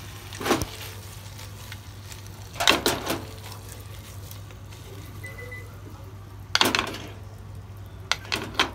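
Stir-fry of bamboo shoots and chicken being stirred and tossed in a nonstick frying pan: four short bouts of scraping and clattering against the pan, over a steady low hum.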